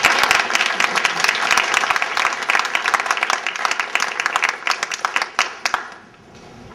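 Audience applauding, many hands clapping together. The applause dies away about six seconds in.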